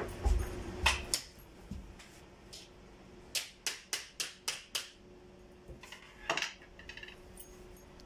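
Lever handle of an aluminium door being worked, its latch mechanism clicking: a quick run of about seven sharp clicks in the middle, with a few knocks before it and a louder clack later.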